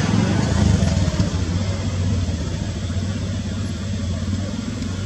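A steady, low engine-like hum under a broad hiss, slightly louder about a second in and then easing off a little.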